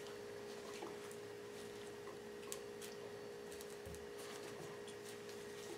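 Faint handling sounds of a fillet knife and gloved fingers working a mink's pelt loose at the tail: scattered soft clicks and rustles over a steady hum.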